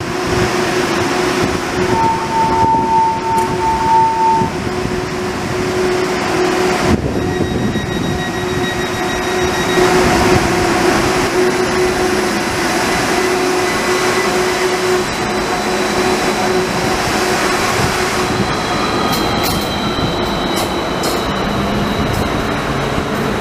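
Danhai light rail tram's electric running sound: a steady hum at the platform, with a steady beep sounding for about two seconds near the start. From about seven seconds in the tram is moving on the track, with faint thin wheel squeal and a few clicks near the end.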